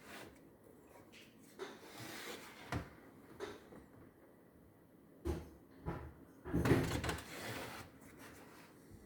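Hiseeu security camera making a strange noise: irregular clunks and scraping rustles, a handful of separate knocks with a longer, louder scrape about two thirds of the way through.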